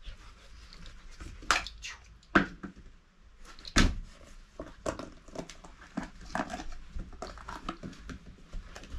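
A puppy mouthing and pushing a small plastic tub on a jute mat: irregular plastic clicks and knocks, with three louder knocks about one and a half, two and a half and four seconds in.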